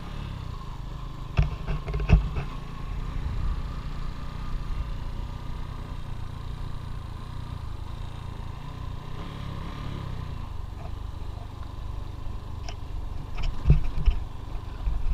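Motorcycle riding on a gravel road: a steady low engine rumble mixed with wind noise, with a few sharp thumps from bumps, about one and a half and two seconds in and again near the end.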